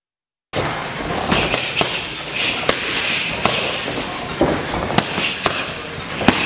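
Boxing gloves striking focus mitts: sharp smacks at irregular spacing, some in quick runs of two or three, over a steady room hiss. The sound starts abruptly about half a second in.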